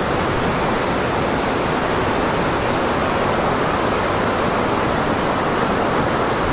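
A loud, steady, even hiss of noise with no pitch or rhythm in it.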